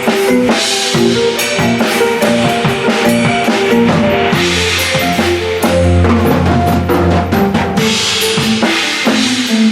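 Large drum kit played in a busy groove: snare and bass drum hits with washes of crashing cymbals, over sustained pitched notes that change every fraction of a second.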